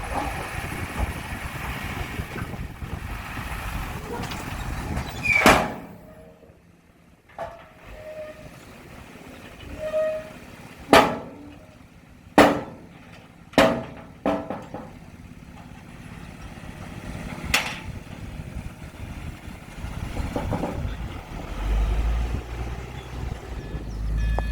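Heavy earthmoving machinery running, with about six sharp, loud metallic bangs spread over the middle of the stretch and a deep engine rumble rising near the end.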